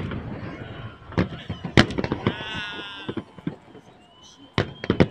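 Fireworks salute going off: a series of sharp bangs and crackling, with a loud bang about two seconds in and a quick run of bangs near the end. A brief high-pitched sound comes just after the loud bang.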